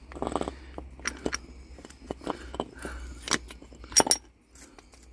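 Metal hand tools clinking and rattling: an irregular string of sharp clicks and jingles, the loudest two about three and four seconds in.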